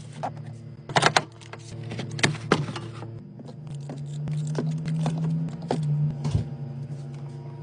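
Grocery items and containers knocking and clinking as they are set onto refrigerator shelves, a string of irregular knocks with the loudest about a second in and around two and a half seconds. A steady low hum runs underneath and grows louder in the middle.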